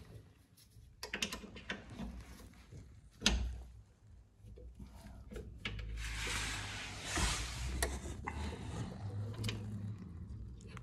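Scattered small clicks and knocks of hand work at a drum brake's bleed nipple, with a glass jar and bleed tube held under it; a louder knock about three seconds in and a short rustle a little after the middle.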